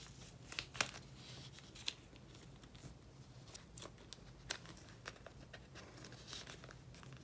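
Faint crinkling and rustling of clear plastic photocard binder pockets as white card fillers are slid in and the pages handled, with a few small sharp clicks scattered through, over a faint steady low hum.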